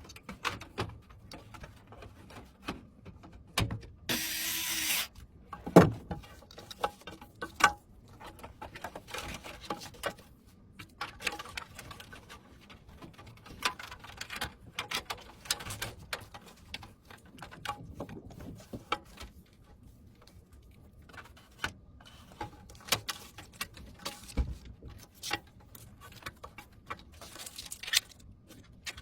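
Computer parts being handled and fitted during a PC build: irregular small clicks, taps and knocks of plastic and metal, with a brief hiss of about a second starting about four seconds in.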